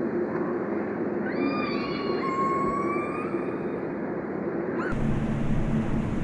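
Constructed sound collage: a steady noisy bed, with a long, slowly falling pitched tone with overtones in the middle. Near the end the bed changes abruptly to a lower hum.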